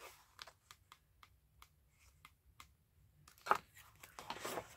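Paper being handled: light scattered ticks and rustles, a sharper crackle about three and a half seconds in, then a louder patch of paper rustling near the end.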